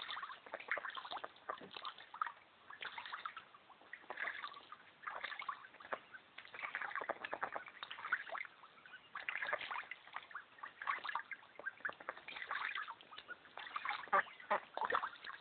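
Young Indian Runner ducks splashing and sloshing in a small pool of water, in irregular short bursts.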